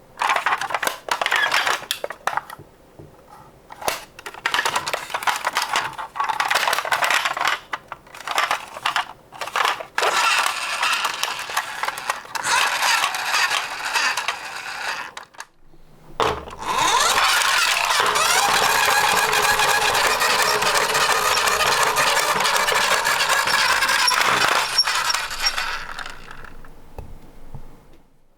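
Die-cast metal Tomica toy cars clinking and clattering against each other in a series of short bursts. About halfway through this becomes one dense, continuous clatter lasting about ten seconds before it stops.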